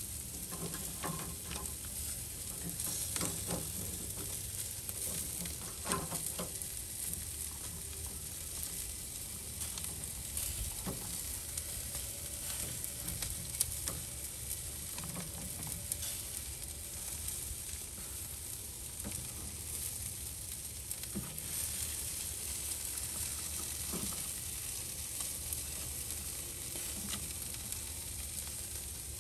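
Steaks and lobster tails sizzling on a barbecue grill, a steady hiss, with a click or tap now and then from metal tongs handling the food on the grate.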